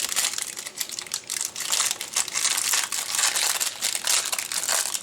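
Plastic film wrapper of a frozen chimichanga crinkling and crackling steadily as it is handled and peeled off.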